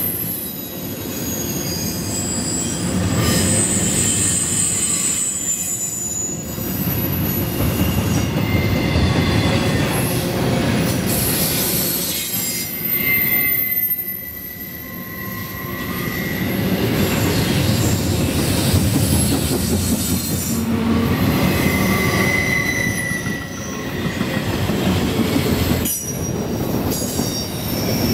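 Double-stack intermodal freight train rolling past: a steady rumble of wheels and cars, with high squealing tones that come and go.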